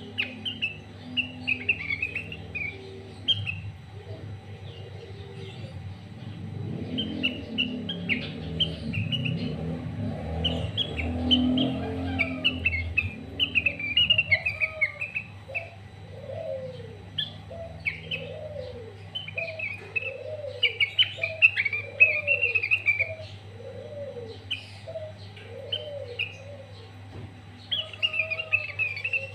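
Sooty-headed bulbul (kutilang) singing loudly in quick bursts of chirpy, warbling phrases, its song mixed with imitated cucak ijo notes. From about halfway, another bird repeats a lower rising-and-falling call roughly once a second.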